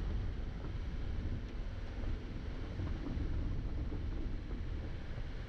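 Subaru Impreza driving over a rough gravel road: a steady low rumble of tyres and engine, with a few faint ticks of gravel.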